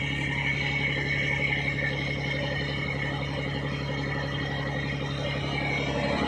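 A fishing trawler's inboard diesel engine running steadily under way, a constant low hum with an even drone over it.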